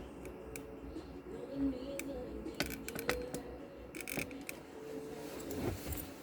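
Scattered small clicks and rattles of plastic Molex power connectors and wires being handled and fitted.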